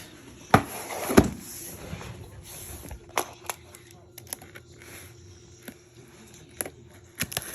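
Box and packaging being handled: scattered knocks and clicks, two louder knocks about half a second and a second in.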